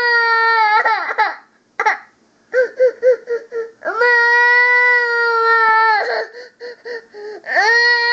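A little girl crying: long, high, steady wails that fall away at the end, broken by short gasping sobs in between. It is a put-on cry, as the uploader has it.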